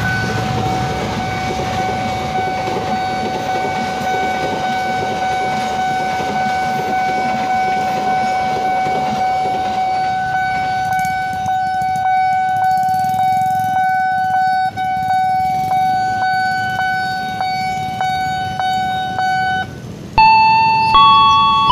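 A railway level-crossing warning bell rings steadily with a regular pulsing beat while a diesel-hauled passenger train rumbles past over the rails. Near the end the bell stops and a short tune of stepped chime notes starts from the crossing as the barrier lifts.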